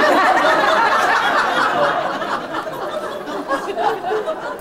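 An audience laughing together, breaking out all at once and slowly dying down, with some chatter mixed in.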